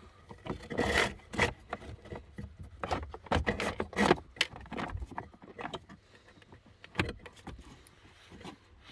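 Cabin air filter cassette being pushed into its housing behind the glovebox: irregular scraping, rubbing and clicking, busiest in the first few seconds and then sparser.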